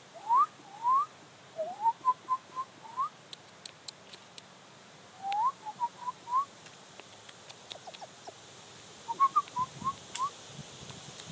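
Clear whistled notes in three short phrases, each a couple of upward-sliding whistles followed by several quick short notes, with a few faint clicks between them.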